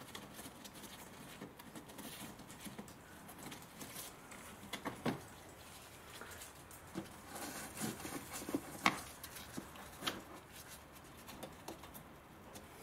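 Scattered light clicks, taps and rustling of hands and a tool working at a car's plastic wheel-arch liner while the Torx screws holding the bumper are taken out, with sharper clicks about five and nine seconds in.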